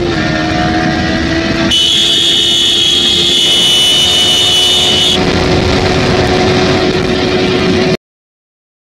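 Yamaha R15 V4's 155 cc single-cylinder engine running hard in fourth gear at around 100–115 km/h, its steady note under heavy wind rush. A high whine sounds for a few seconds in the middle, and the sound cuts off abruptly near the end.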